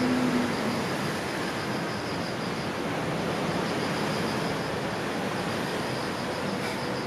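Steady outdoor background noise, an even rushing like distant traffic or wind, with a faint, high, rapidly pulsing chirp running through it.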